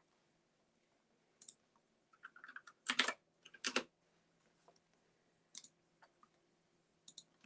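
Sparse, irregular clicking at a computer, a few keystrokes or mouse clicks at a time, with two louder clicks about three seconds in.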